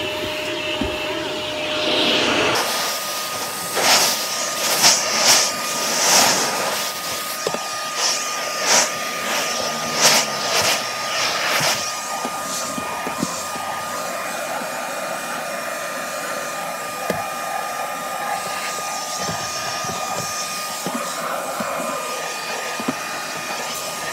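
Vacuum cleaner running steadily with a hose and brush-nozzle wand pushed over car upholstery and door trim. Its whine jumps higher about two and a half seconds in. Between about 4 and 12 seconds in come a run of louder bursts of suction noise as the nozzle is worked against the surfaces.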